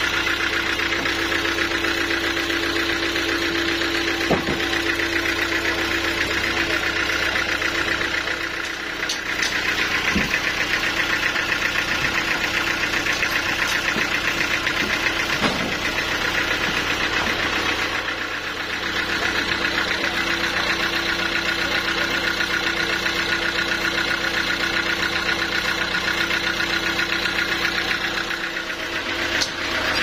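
Stationary engine that drives a band sawmill through belts and pulleys, running steadily at an even speed. A few sharp knocks stand out over it.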